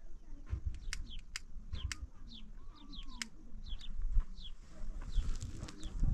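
Small birds chirping: short, falling high notes repeated several times a second, with sharp ticks among them. Near the end a heavy cloth rustles as it is lifted off the ground.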